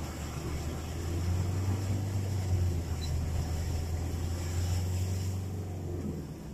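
Vehicle engine running at a steady low drone, heard from inside the cab while driving through a flooded road in heavy rain, with an even hiss of rain and water.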